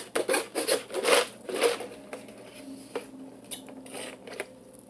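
Crunching and chewing of hard chunks of an arrowroot starch mix: a run of sharp crunches, two or three a second at first, then fewer and further apart.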